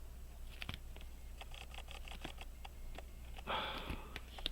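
Faint small clicks and taps of metal hand tools against a pocket watch movement, with a short sniff or breath about three and a half seconds in, over a low steady hum.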